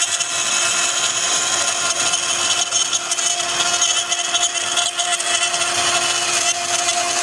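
Woodworking CNC router's 3.5 kW air-cooled spindle running steadily with a high whine, cutting into wood with a constant rough hiss.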